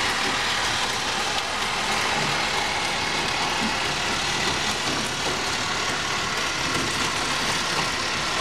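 Motorized toy train running steadily around its plastic track: an even whir of the small motor and wheels that doesn't change.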